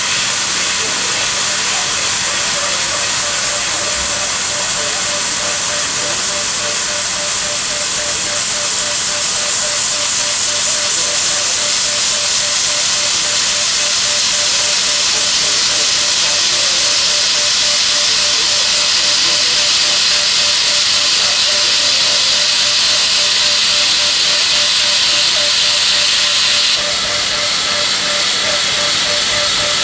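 Milling machine at work on a high-feed cut: a loud, steady hiss with a faint steady tone underneath. The hiss eases slightly near the end.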